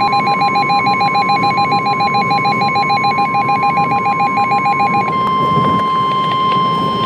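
Emergency Alert System attention signal for a severe thunderstorm warning: a loud, steady electronic alarm tone with a rapidly pulsing, warbling tone pattern layered over it. About five seconds in, the pulsing stops and the alarm goes on as a steady chord of tones.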